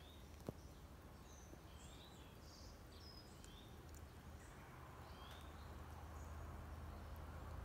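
Faint outdoor quiet with a small bird calling over and over: short rising chirps every second or two, with a few higher notes between them. A single sharp click about half a second in, over a low steady hum.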